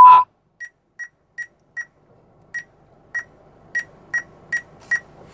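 A loud steady censor bleep cuts off just after the start. It is followed by a run of short, sharp electronic ticks from the car's dashboard, about two and a half a second, pausing briefly near the middle, over a faint hiss.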